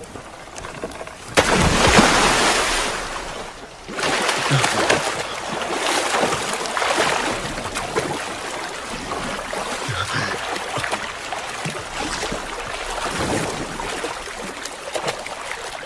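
Water washing and splashing in uneven surges, a rushing noise that starts about a second and a half in, eases briefly and then carries on.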